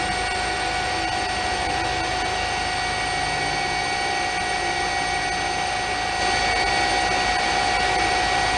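Helicopter engine and rotor noise heard from on board: a steady rushing drone with a steady high whine over it, a little louder from about six seconds in.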